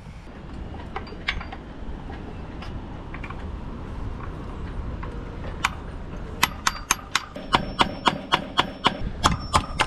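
Hammer striking a seized clevis pin in the forestay fitting at the masthead: sharp metal-on-metal blows, about three a second, starting about six seconds in, over a steady low rush of wind on the microphone.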